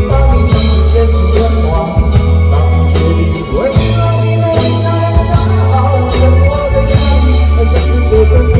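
Live rock band playing loudly, with heavy bass, drums and an organ or keyboard and a wavering melody line, possibly sung.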